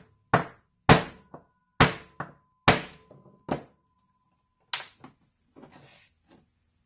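Hammer striking a screw used as a punch, driving a small part into a portable air compressor's pump with a socket backing it: about seven sharp, unevenly spaced blows, with a faint steady ring between them. A few lighter clicks follow near the end.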